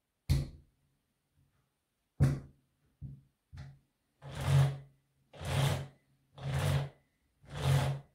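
A Husqvarna chainsaw's chain pulled by hand along its guide bar in four strokes of under a second each, about one a second, after a couple of sharp knocks. Pulling freely by hand is the check that the chain is tensioned correctly.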